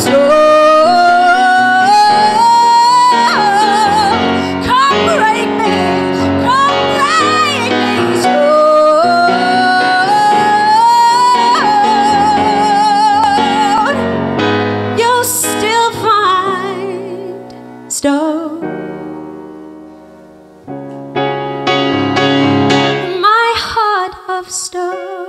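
A woman sings a ballad over grand piano, holding long notes that slide upward and waver with vibrato. About halfway through it drops much softer and sparser, with piano chords under it, before a last sung phrase near the end as the song closes.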